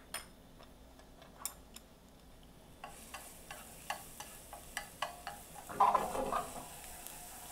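Light clicks of utensils, then from about three seconds in minced garlic sizzling in hot cooking oil in a nonstick frying pan as chopsticks stir and tap it, with a louder clatter against the pan about six seconds in.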